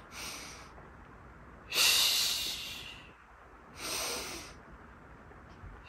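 A woman's breath hissing through her mouth and nose during the Pilates hundred, an abdominal exercise. There are three breaths: a short one at the start, a long loud one about two seconds in, and a shorter one about four seconds in.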